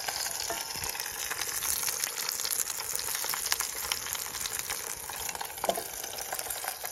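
Burgers sizzling in a frying pan set straight over a wood fire, a steady frying hiss with frequent sharp crackles and pops.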